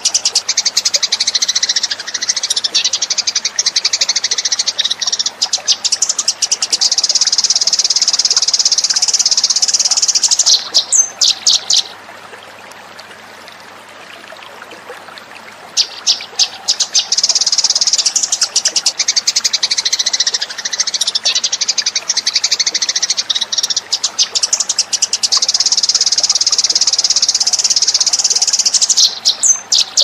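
Eurasian tree sparrows chattering in a dense, rapid, high chirping, broken off after about ten seconds by a few sharp falling calls. After a pause of about four seconds the chatter starts again and runs on until a few more falling calls near the end.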